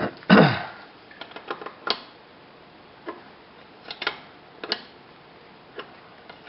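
Metal tool clicks and knocks of a wrench working the tight drain plug of a BMW K1200LT final drive. There is one louder, longer sound about half a second in, then scattered single clicks.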